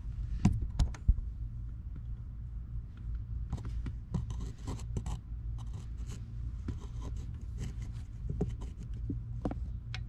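Scattered light clicks and scrapes of metal parts being handled at the gear shift linkage, a few sharper clicks about a second in and a dense run of them through the middle, over a low steady hum.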